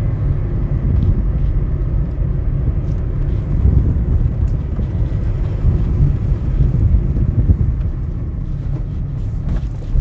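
Car driving steadily on a paved road, heard from inside the cabin: a continuous low rumble of engine and tyre noise.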